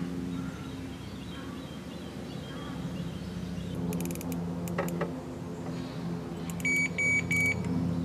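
Electronic carp bite alarm beeping three times in quick succession near the end, as the rod is set on its rest and the line tightened. A few sharp clicks come about four seconds in, over a steady low drone.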